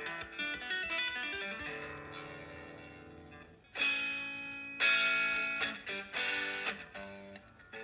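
Electric guitar played fingerstyle: a run of quick plucked notes, then a chord left ringing and fading away, then from about four seconds in a series of struck chords, each left to ring.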